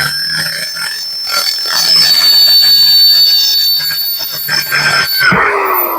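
Bosch GSB 450 corded drill running at speed with an 8 mm metal bit cutting through roughly 3 mm thick metal plate: a steady high motor whine over the rasp of the bit. About five seconds in, the trigger is released and the motor winds down with a falling whine.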